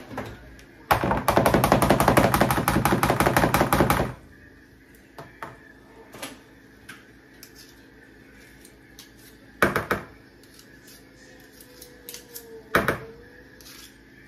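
Spice shaker shaken hard over a mixing bowl: a loud, fast rattle of about ten clicks a second, lasting about three seconds. Later come two sharp knocks, about three seconds apart.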